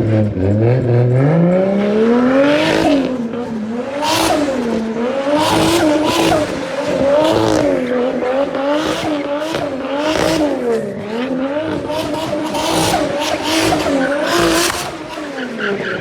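Nissan Skyline R33 engine revving up over the first two seconds, then held high with the revs rising and falling every second or two as the car spins, with the tyres squealing again and again.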